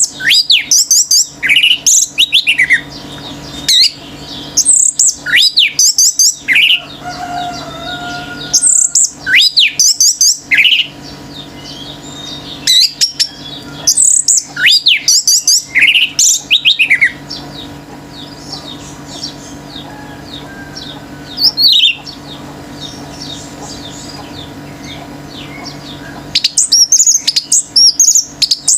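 Orange-headed thrush singing loud phrases of rapid sweeping whistles and trills, coming in bursts a few seconds apart. Fainter twittering from other birds fills the gaps, over a steady low hum.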